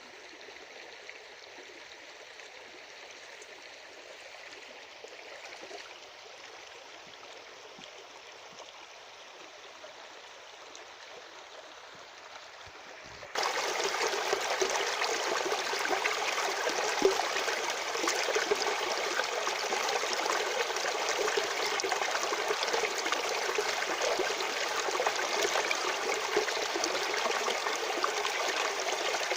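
Natural stream water flowing in a steady rush. About halfway through it cuts abruptly to a much louder, fuller rush of water.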